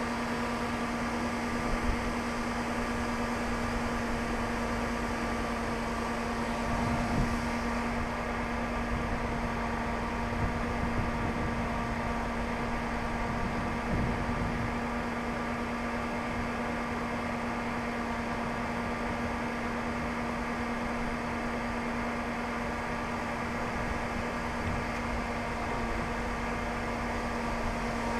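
Steady mechanical hum with one constant low tone and a faint hiss, broken by a few soft low bumps.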